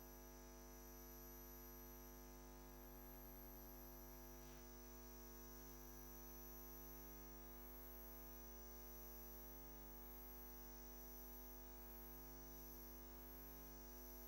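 Near silence, a muted sound feed with only a faint steady electrical hum.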